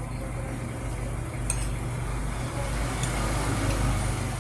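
Steady low hum and rumble of background noise that swells about three to four seconds in, with a single clink of cutlery on a plate about a second and a half in.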